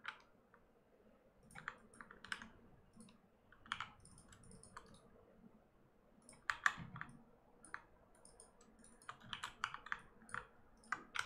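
Computer keyboard keys and mouse buttons clicking faintly in irregular bursts, the sound of hotkeys and clicks while working in 3D modelling software.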